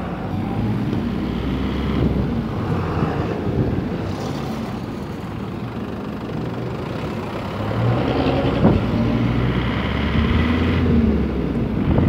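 Truck engines and road traffic running close by, a steady low rumble that grows louder over the last few seconds.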